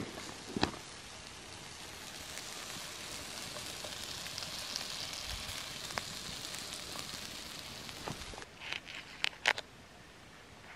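Food frying in a cast iron pan over an open fire: a steady sizzling hiss with a few sharp clicks and crackles. The hiss stops abruptly about eight seconds in, followed by a few clicks and knocks.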